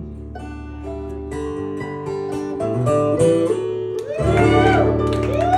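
Guitar playing the closing bars of a live country song: single picked notes, then a full chord struck about four seconds in and left ringing.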